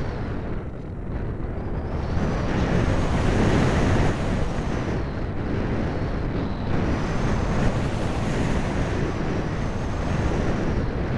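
Airflow rushing over the microphone of a camera mounted on a model aircraft in flight, a steady loud roar that swells and eases as the plane banks, with a faint high whine rising and falling.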